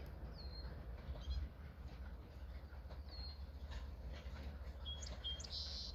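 Small birds giving short high chirps, a hooked call twice and a quick run of chirps near the end, over a steady low rumble.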